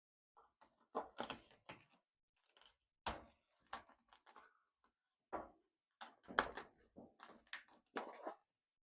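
Faint scattered clicks, knocks and rustles of handling a dryer-vent-cleaning-kit attachment and tape while fixing it onto the dryer's vent pipe.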